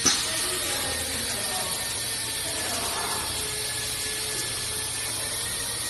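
Pneumatic aluminium-cup filling and sealing machine running: one sharp clack of its air-driven stations right at the start, then a steady hiss with a low machine hum and no further strokes.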